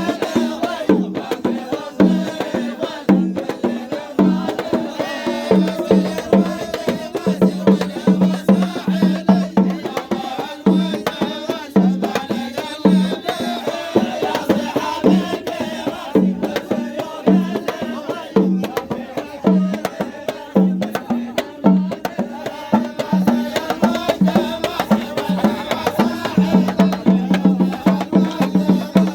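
Arabic folk music with drums and other percussion beating a steady rhythm under a melody line, with no singing.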